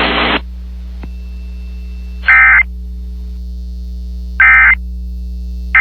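Emergency Alert System digital data bursts: three short, shrill warbling squawks about two seconds and then a second and a half apart, the end-of-message code that closes a broadcast alert. They sound over a steady electrical hum, after a hiss of radio noise cuts off near the start.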